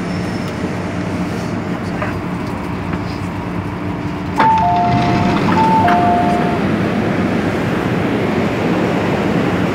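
Steady interior hum of an MTR M-Train electric metro car. About four seconds in, the noise gets suddenly louder and a two-tone electronic chime sounds high-low, high-low.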